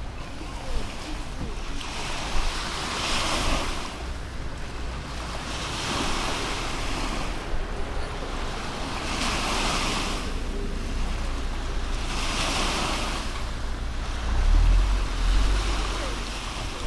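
Mediterranean waves breaking on a beach, a wash of surf swelling about every three seconds. Wind rumbles on the microphone near the end.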